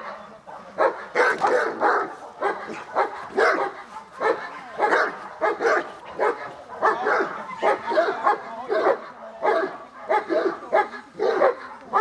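Great Dane barking over and over during protection training, about two deep barks a second.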